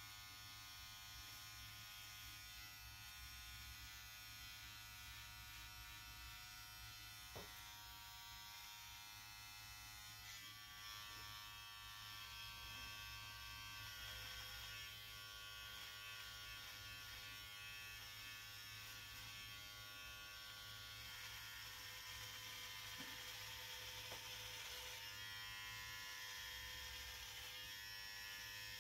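Electric hair trimmer buzzing steadily as it edges a beard line and the hair around the ear.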